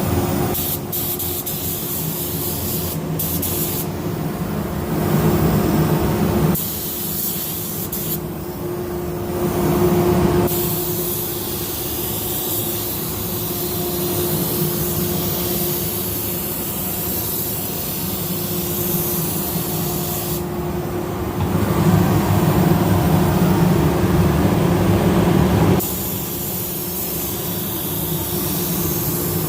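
Compressed-air spray gun hissing as it sprays primer onto a car hood, louder in several long passes, over a steady low hum.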